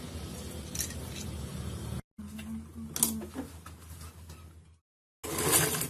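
Vinyl upholstery fabric being shifted and handled, with a few light clicks. The sound breaks off abruptly twice, and a louder steady noise starts near the end.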